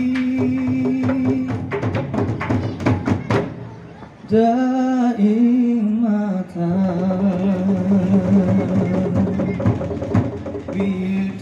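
Rampak bedug: several large bedug drums struck with sticks in a fast, dense rhythm under a man singing into a microphone. About four seconds in, the drumming and singing drop away for a moment, then the voice returns loud with long held notes over lighter drumming.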